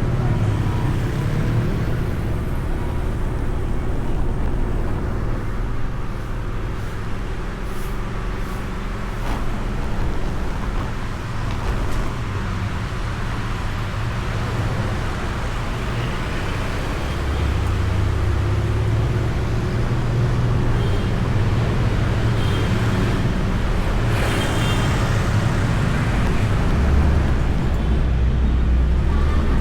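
Motorcycle engine running and road and traffic noise while riding, heard through a microphone inside the rider's helmet. The low engine sound grows louder about two-thirds of the way in and again near the end.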